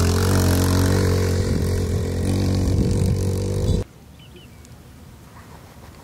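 A motor or engine running at a steady low pitch, cutting off abruptly about four seconds in and leaving only a faint hiss.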